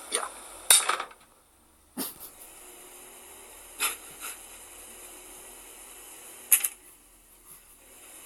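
A rice paddle knocking and scraping against a pot of fried rice in several sharp knocks, the loudest about a second in, as the paddle breaks apart.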